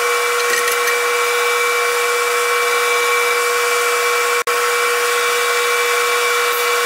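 AC TIG welding arc on aluminum: a steady buzzing hiss with a high hum. It breaks off for an instant about four and a half seconds in.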